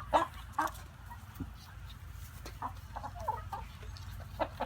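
Chickens clucking: scattered short clucks, with a couple of sharp pecking-like clicks near the start and one near the end.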